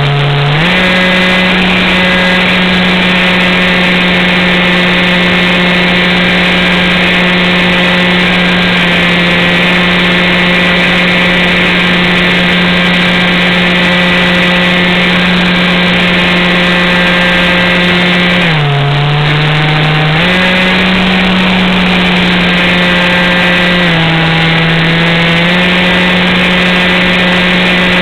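Radio-controlled model plane's motor and propeller, heard close up from the onboard camera, droning loudly and steadily. The pitch dips and comes back up twice, about two-thirds of the way in and again near the end.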